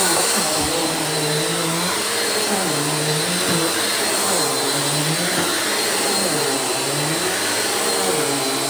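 Bissell upright vacuum cleaner running on carpet, with a steady high whine over the motor hum. The motor's pitch dips and recovers every second or two as the head is worked across the carpet.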